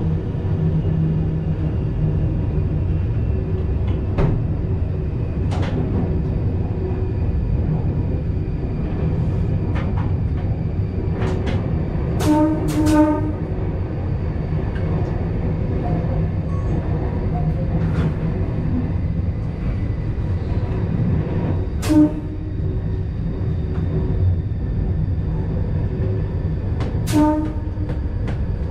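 Vintage electric train heard from inside the driver's cab: a steady running rumble with scattered sharp clicks, and now and then a brief pitched squeal or tone, twice in quick succession about halfway through and again later.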